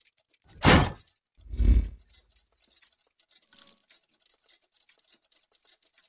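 Sound effects of an animated intro: two heavy thuds about a second apart, then a much fainter one a couple of seconds later.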